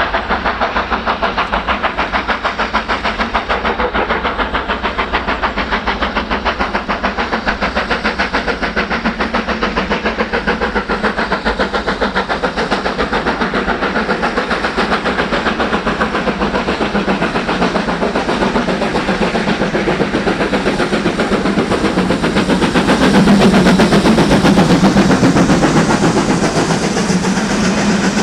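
BR Standard Class 7 'Britannia' Pacific steam locomotive 70000 working a train, its two-cylinder exhaust beating in a rapid, even rhythm with hissing steam. The sound grows louder over the last few seconds as the locomotive comes closest.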